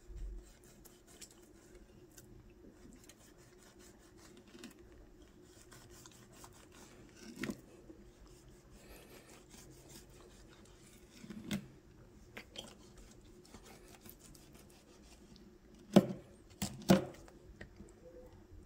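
Knife scoring a scaled flounder on a wooden cutting board: faint slicing and rubbing as the blade draws through the skin and flesh, with a few short sharp knocks, the loudest two close together near the end.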